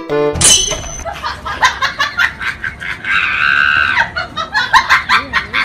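People laughing and giggling in quick bursts, with a held high-pitched squeal of laughter about three seconds in that lasts about a second.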